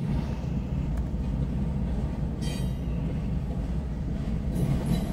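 Freight train's autorack cars rolling slowly past, a steady low rumble of wheels on rail, with a brief high squeal about two and a half seconds in.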